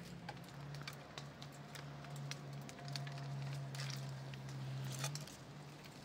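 Pistachio clusters being snapped off a tree by hand and dropped into a cloth bag: scattered small clicks and leaf rustles. Under them runs a steady low hum that breaks off briefly near the end.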